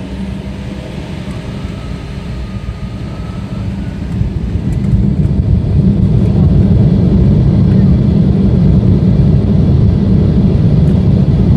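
Cabin noise of an Embraer 170 jet on its takeoff roll: the turbofan engines spool up to takeoff thrust, a deep rumble that grows louder about four seconds in and then holds steady.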